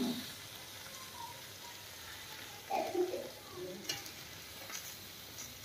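Hot sizzler plate sizzling with a steady, quiet hiss as the freshly poured gravy cooks on it. There is a brief handling sound about three seconds in and a couple of light clicks after.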